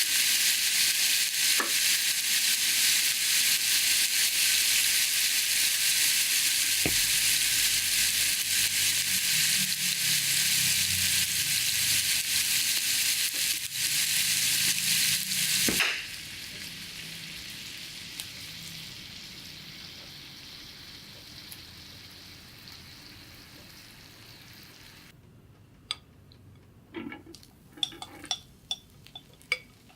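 Food frying on an electric hot plate: a loud, steady sizzle that drops suddenly about halfway to a much quieter sizzle that fades away, then a few light clicks and taps of a utensil near the end.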